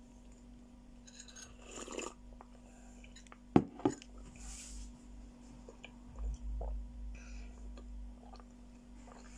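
A sip from a ceramic cup, then two sharp clinks about three and a half seconds in as the cup with its spoon is set down, followed by soft chewing. A low steady hum runs underneath.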